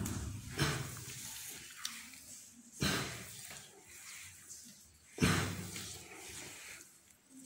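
A man breathing out hard and straining during a floor exercise, a few forceful breaths a couple of seconds apart, each fading out over about a second.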